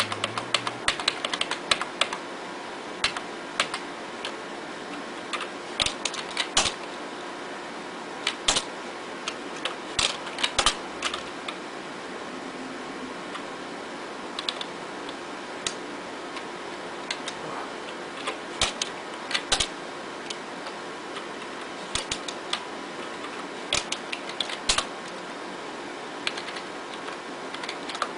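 Computer keyboard keys clicking, sometimes singly and sometimes in quick runs of several presses, while stepping through BIOS setup menus. A steady hum runs underneath.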